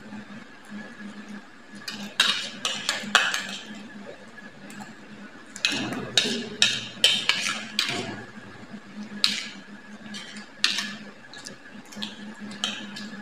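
Metal spoon and fork clinking and scraping against dinner plates as two children eat noodles: irregular sharp clicks, some in quick clusters, over a faint steady hum.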